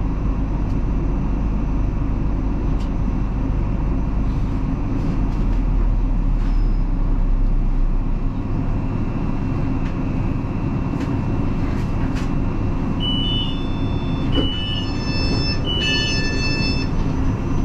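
Inside a London suburban electric train running along the track: a steady rumble of wheels and motors. A low hum cuts out about halfway through, and near the end three short high-pitched tones ring out as the train nears a station.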